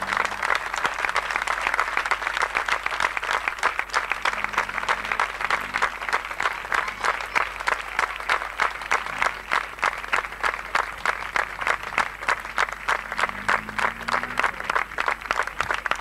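A crowd of spectators applauding steadily, the clapping falling into a more even rhythm about halfway through.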